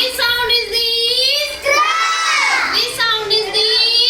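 A child singing in a high voice, holding long drawn-out notes with short breaks between phrases.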